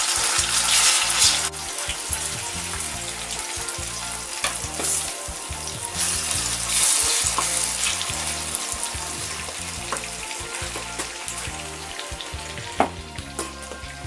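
Roasted, peeled peppers sizzling as they fry in oil in a pan while being turned and stirred with a wooden spoon. The sizzle is loudest in the first second and a half, then settles lower with a few swells. There is a single sharp knock near the end.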